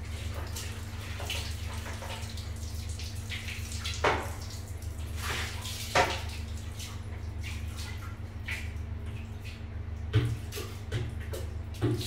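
Water splashing and sloshing as a white plastic bucket of water is poured into a toilet bowl, with a few sudden knocks from the bucket and the handling. A steady low hum runs underneath.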